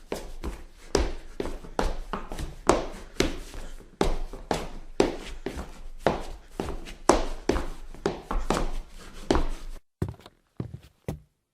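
A run of irregular thuds and knocks, often several a second, each with a short ring after it, stopping abruptly about ten seconds in; a few fainter isolated clicks follow.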